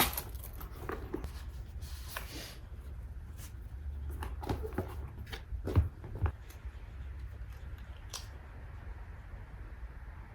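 Small clicks and knocks of cutlery and tableware at a meal, scattered and irregular, with a couple of louder knocks just before the middle, over a steady low hum of room tone.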